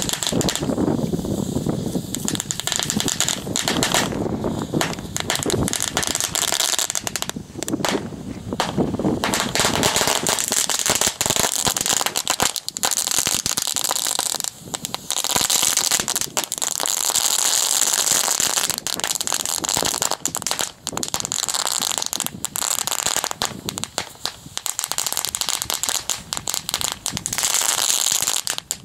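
Crackling fireworks going off together in a packed box: a long, dense run of rapid crackles and pops over a fizzing hiss, swelling and easing in loudness.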